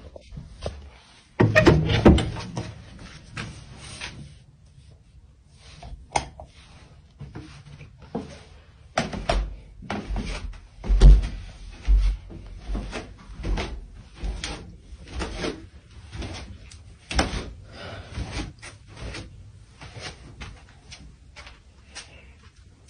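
A door being opened, then footsteps going down basement stairs as a run of knocks about every half second to a second, with the heaviest low thumps around the middle.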